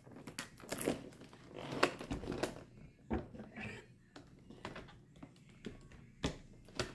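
Toy packaging being handled and opened by hand: scattered clicks, taps and plastic rustles, a few sharper ones about a second, two, three and six seconds in.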